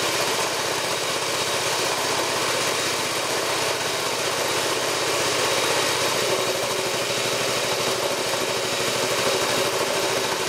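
Small single-cylinder petrol engine running steadily, belt-driving a Ford car AC compressor.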